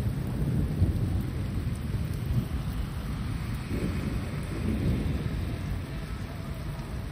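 Thunder rumbling low and long, slowly fading over the second half, with steady rain falling.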